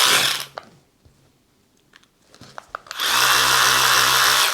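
Parkside PAR 4 A1 4 V cordless ratchet motor running free, a steady whir with a gear whine. It stops just after the start, a few light clicks follow, and it runs again for about a second and a half near the end.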